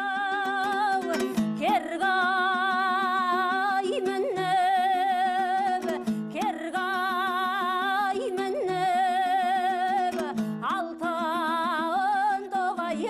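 A high voice sings a Kazakh folk song in long held notes with a wide vibrato and short gliding ornaments between them, over plucked string accompaniment.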